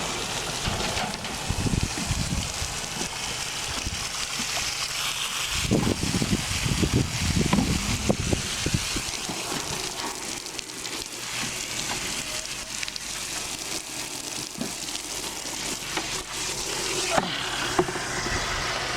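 A container being filled on a farm, with a steady crackling hiss of material pouring in and some louder rustling knocks about six to eight seconds in.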